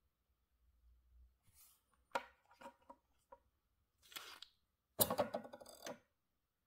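Handling sounds at a wooden table: a few sharp knocks and clicks as the watch on its cushion is set down, a short rustle, then about a second of dense rustling and clatter.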